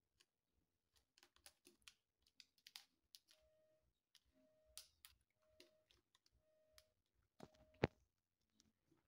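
Faint, scattered clicks and taps of a kitten's claws and a hand on a plastic basket. Midway come five short, even beeps about a second apart, and near the end one sharp, louder click.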